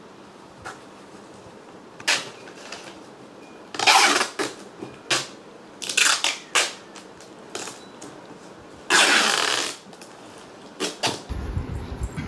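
Brown packing tape pulled off its roll to seal a cardboard box: two long loud rips, about four and nine seconds in, with shorter tugs and taps on the cardboard between.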